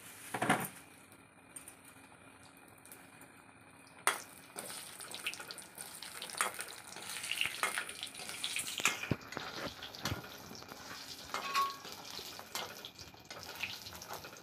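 Small round fritters sizzling in hot oil in a steel wok, with a metal spatula scraping and clinking against the wok and a steel plate as they are turned and lifted out. There is a sharp clank about half a second in and another about four seconds in.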